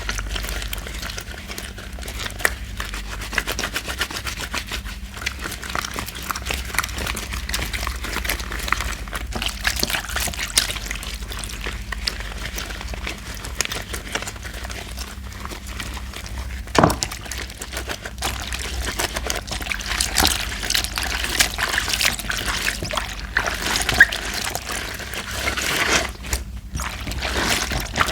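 Laundry soap being lathered with water: continuous wet squishing and fine crackling of suds, with one sharper click about 17 seconds in.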